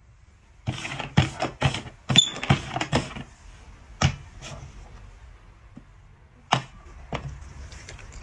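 Quick clacks and knocks of cups on a board, then a single sharp tap about four seconds in as a dog's paw strikes one cup, and another a couple of seconds later.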